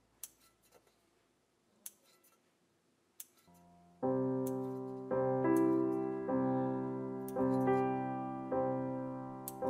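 Kitchen scissors snipping through soft bread dough: a few short sharp clicks, about one every second or two. About four seconds in, piano music starts and is much louder than the snips, with a new chord about every second.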